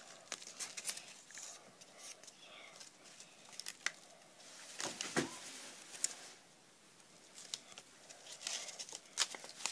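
Paper rustling and crinkling in the hands, with scattered small clicks, as strips of paper are pressed and glued onto a paper lantern. A louder bump comes about five seconds in.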